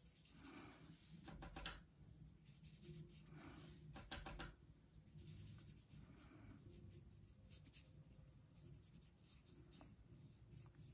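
Faint, irregular soft swishes of a paintbrush stroking and dabbing paint onto paper, over quiet room tone.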